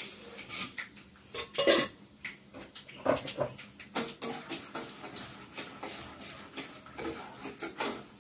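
Dishes and metal utensils clinking and knocking against each other in irregular short strokes, as in kitchen work.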